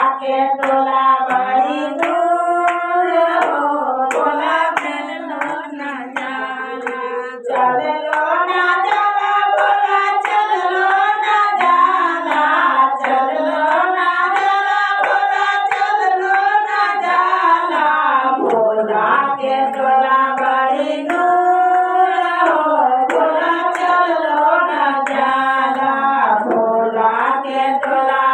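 A group of women singing a Shiv bhajan together, with steady hand-clapping keeping the beat.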